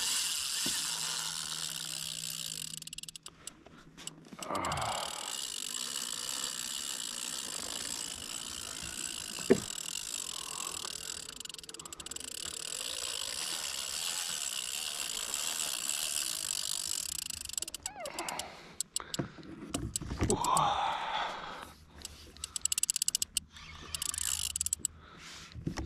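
Spinning reel's drag buzzing steadily as a hooked fish runs and strips line off, with one sharp knock about nine and a half seconds in. Near the end the buzz comes in short spurts.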